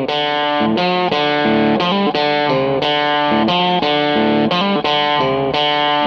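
Background music: an electric guitar with a distorted tone playing a riff of chords that change every half second or so, with no drums.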